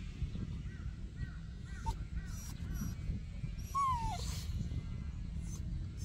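Wind buffeting the microphone with a steady low rumble. Over it come a few faint, high chirping calls in the first three seconds, and one falling whine about four seconds in.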